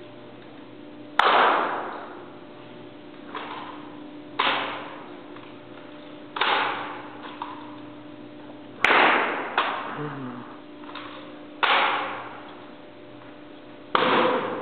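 About eight sharp smacks, irregularly spaced, of a drill rifle being snapped and slapped between positions in a manual-of-arms rifle drill, each ringing out with a long echo in a large hall.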